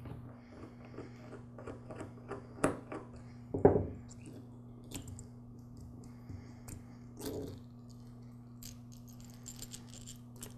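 Small clicks and taps of a screwdriver and little metal parts as screws are backed out of the bottom of a small two-cycle trimmer carburetor and the primer bulb parts are lifted off and set down, with a few louder knocks among them. A faint steady low hum runs underneath.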